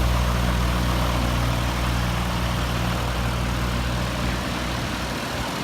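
Viking 110 aircraft engine on a Zenith CH-650, fitted with a new high-performance muffler, running steadily at a low, even note that grows a little fainter near the end.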